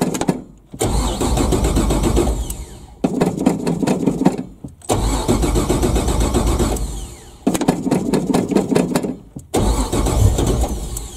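406 cubic-inch small-block Chevy V8 being cold-started: the starter cranks in several bursts with short breaks between them, and the engine fires but does not stay running. The accelerator is being pumped to feed it fuel.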